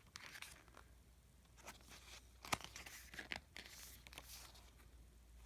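Pages of a photo book being turned and handled: faint paper rustling with scattered small clicks and one sharper tap about halfway through.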